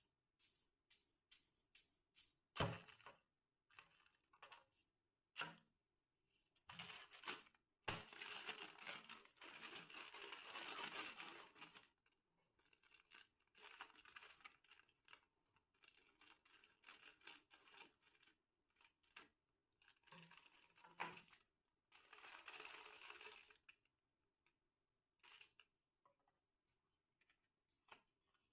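Plastic snack packets being handled and torn open: scattered crinkles and sharp clicks, with longer stretches of rustling and tearing about eight seconds in and again past twenty seconds.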